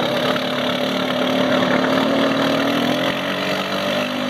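Lifted ATV engine running steadily under load as the machine churns through deep mud and water, its note rising slightly about three seconds in.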